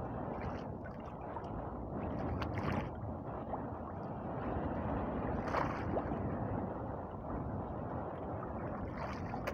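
Sea water sloshing and lapping against the hull of a small outrigger boat adrift, a steady wash with a few short clicks.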